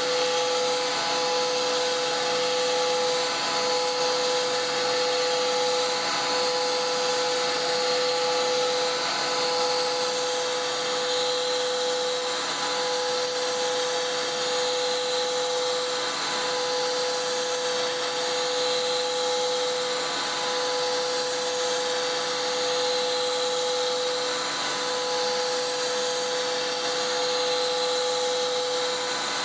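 CNC router's 11 hp Hiteco spindle cutting with a three-flute bit at 10,000 rpm: a steady high whine over a noisy hiss, the tone dipping briefly every few seconds.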